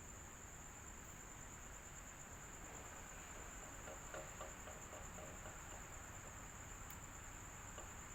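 Electric fan running steadily: an even, low-level whoosh with a constant thin high-pitched whine on top.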